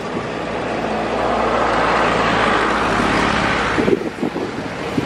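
Vehicle noise swelling over a few seconds and then dropping away suddenly about four seconds in, over a low steady hum, with wind buffeting the microphone near the end.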